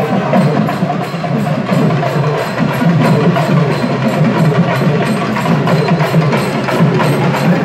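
Urumi Melam drum ensemble playing a fast, even beat of rapid drum strokes that keeps going without a break.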